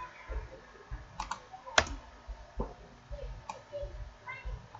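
A handful of scattered, sharp clicks from a computer keyboard and mouse as a document is edited, the loudest about halfway through, with low soft thumps from the desk.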